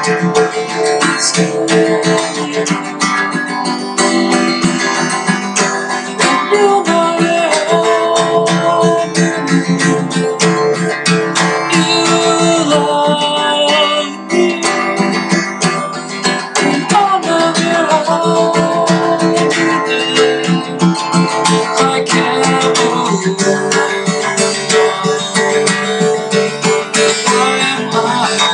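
Solo acoustic guitar played in a progressive math-rock style: a busy, fast run of picked notes and shifting chords, breaking off right at the end.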